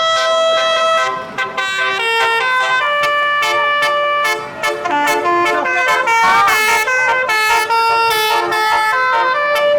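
Basuri telolet horn, a multi-trumpet vehicle air horn, playing a loud melody. Several notes sound together and step to new pitches every half second to a second, with two brief breaks.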